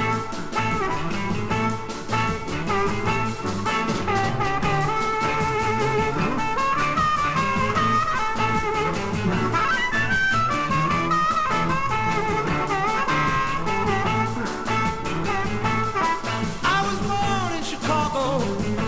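Blues-rock song playing: an instrumental passage with guitar and a steady beat, before the vocal comes in.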